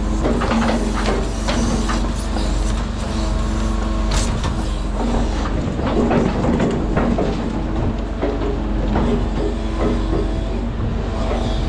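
Mercedes-Benz Arocs timber truck's diesel engine running steadily, with frequent rattles and knocks over it.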